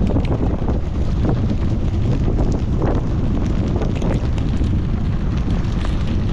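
Strong wind buffeting the microphone, a steady low rumble with a light scattering of ticks over it.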